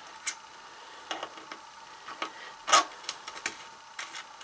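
Thin steel pin collar being unscrewed by hand along the threaded muzzle end of an AR-15 barrel: scattered light metal clicks and scrapes as it turns on the threads, the loudest a little under three seconds in.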